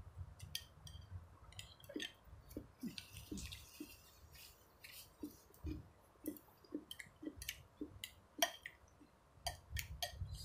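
Someone quietly eating noodle soup: chewing and mouth sounds, with scattered small clicks and clinks of a metal spoon and chopsticks against a ceramic bowl.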